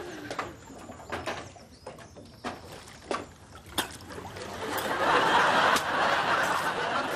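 Water lapping and slapping against a stone edge in small splashes, then studio audience laughter swelling from about five seconds in as a man surfaces and grabs the edge.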